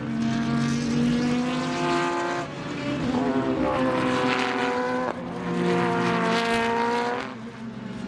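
Several Super GT race cars passing one after another through a corner at racing revs. Their engine notes rise, then break and jump in pitch a few times as gears change and one car follows another, fading slightly near the end.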